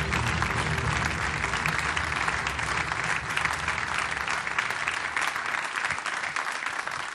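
Audience applauding, with music fading out in the first couple of seconds; the applause begins to die away near the end.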